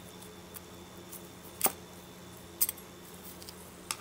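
Metal parts of antique brass binoculars clicking as they are handled and taken apart: three sharp clicks about a second apart, the middle one doubled, over a faint steady hum.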